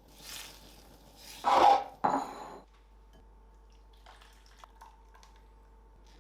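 Kitchen food-preparation sounds: three short scraping or rustling noises in the first few seconds, the middle one the loudest, followed by a few faint light clicks of utensils or dishes.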